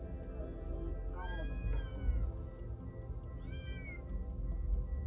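Domestic cat meowing twice: a long meow a little over a second in, then a shorter meow that falls in pitch about three and a half seconds in.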